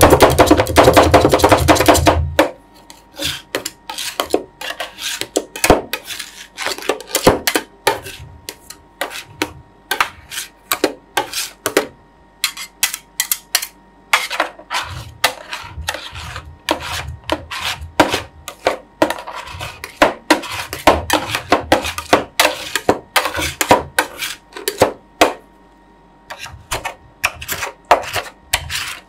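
Background music cuts off about two seconds in. Then steel spatulas chop and scrape the ice-cream base on the frozen metal plate of a roll ice cream machine, with rapid, irregular clacks in bursts and short pauses between them.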